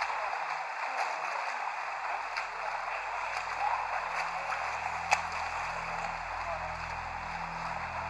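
Swimming-pool ambience: a steady wash of splashing water from swimmers, with a few light clicks and one sharp click about five seconds in. A faint low hum wavers in about two seconds in.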